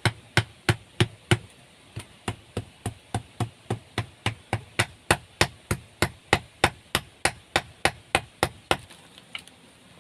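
A long run of sharp tool strikes, about three a second, with a short pause about two seconds in, stopping near the end.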